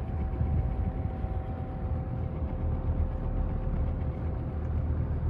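A 1980s Super 20-inch box fan with a Marco motor running on low speed: a steady rush of air with a faint constant whine. The fan's airflow buffets the microphone with a fluttering low rumble.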